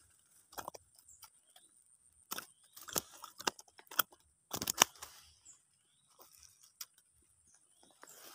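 Hands handling fishing gear among dry grass and leaf litter: scattered sharp clicks, crunches and rustles, thickest in the middle and thinning out in the last few seconds.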